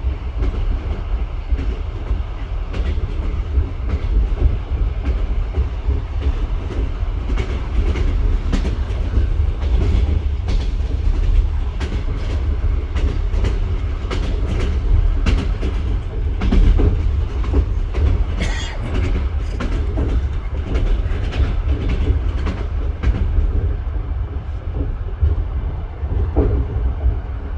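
Train running along the track, its wheels knocking continuously over the rail joints with a heavy low rumble. A brief high squeal is heard about two-thirds through.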